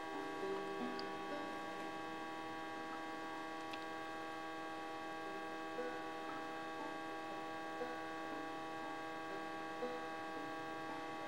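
Small unipolar stepper motor running steadily under its driver, giving a steady buzzing whine of many tones from its rapid stepping, with a faint tick about every two seconds.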